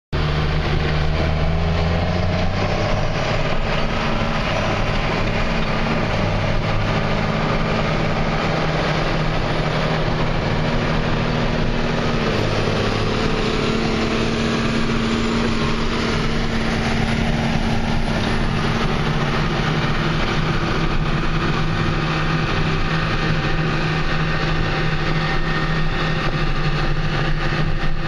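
Large farm-tractor diesel engines running steadily, a John Deere tractor pulling a Kinze grain cart close by; the engine note shifts slightly a couple of times.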